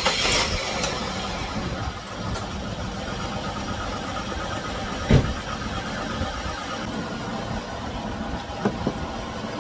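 The Chevy Venture's 3.4-litre V6 idling steadily after the thermostat replacement, warming up so the thermostat opens and air can be bled from the cooling system. A single sharp thump about five seconds in, and a couple of light clicks near the end.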